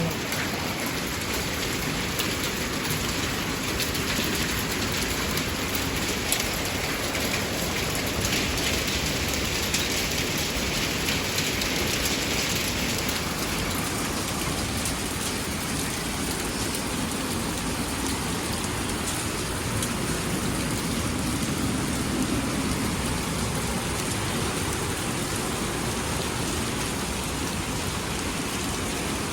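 Heavy rain and hail: a steady downpour with a dense patter of drops and stones striking surfaces. The higher, hissing part of the patter eases about halfway through.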